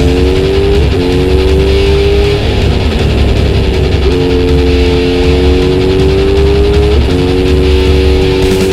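Kawasaki Z900RS inline-four running through a Misty Kintaro short-pipe muffler while riding, its exhaust note climbing gradually and stepping in pitch a few times, over a steady low rumble.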